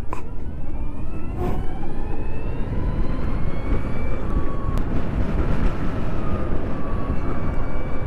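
LiveWire One electric motorcycle's motor whining as it accelerates, the whine rising in pitch about a second and a half in, levelling off, then rising again near the end, under heavy wind noise on the rider's microphone.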